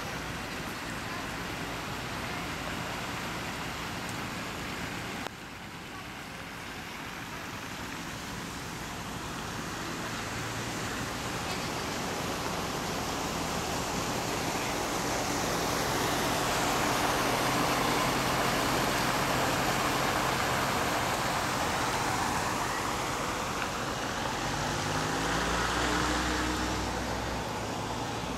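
A vehicle passing along a wet, flooded street: steady tyre hiss that swells to its loudest about halfway and eases off, with an engine hum rising in pitch near the end.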